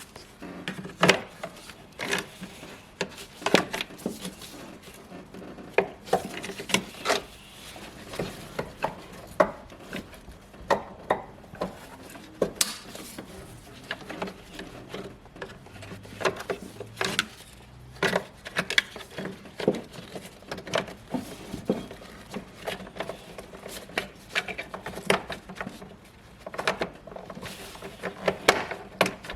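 Irregular clicks, taps and knocks of hand tools and car parts being handled while a cover is refitted during reassembly work.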